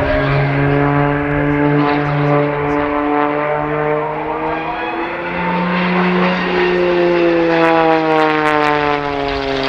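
Wolf Pitts Pro aerobatic biplane's piston engine and propeller running hard through a smoking dive, the note sagging slowly. About five seconds in the note jumps higher, then falls steadily as the plane sweeps past low along the runway.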